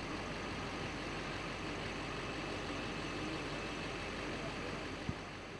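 Steady street traffic noise with a vehicle engine running, and a single short click near the end.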